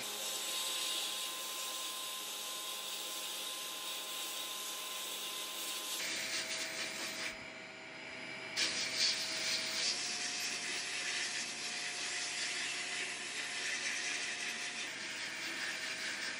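Electric power tool running, a steady motor hum with a harsh hiss over it. The pitch of the hum changes abruptly a few times. Near the middle the hiss drops away briefly, then comes back louder and rougher.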